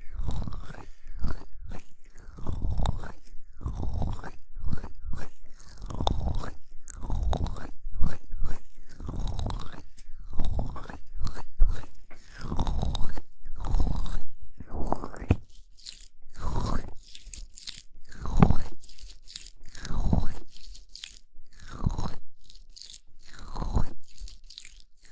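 Oiled hands rubbing and massaging the ear covers of a binaural microphone, heard right at the mic as slow, repeated swishing strokes with a deep rumble, about one a second, spacing out in the last third.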